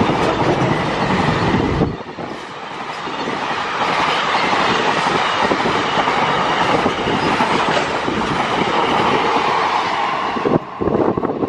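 Rolling noise of a double-stack container freight train's wagon wheels on the rails as the wagons pass close by. The deep rumble drops away abruptly about two seconds in. Near the end the brake van passes and the noise breaks up.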